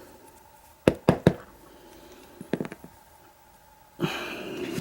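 Small metal padlock parts, pins and springs, clicking and tapping on a hard surface as they are handled: three quick sharp clicks about a second in, a few lighter ones midway, and a short rustle near the end.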